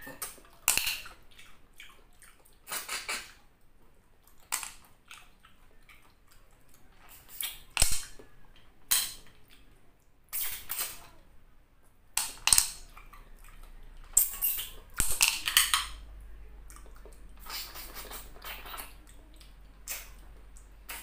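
Close, wet sucking and slurping as snail meat is sucked out of the shells in coconut-milk sauce, in short irregular pulls with pauses between.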